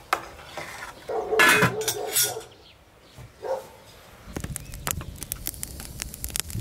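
A metal spoon knocking against a stainless steel stockpot, with a short loud cry about a second and a half in. From about four seconds in, an open wood fire crackles with many quick sharp pops over a low rumble.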